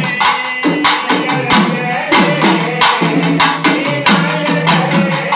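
A group of double-headed cylindrical drums beaten together in a fast, steady rhythm, with men's voices chanting or singing over the drumming.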